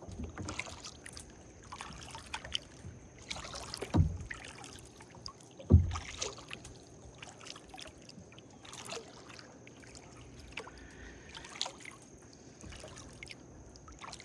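Kayak paddling: irregular paddle strokes swishing and dripping in still water, with two sharper knocks of the paddle against the hull about 4 and 6 seconds in, the second the louder.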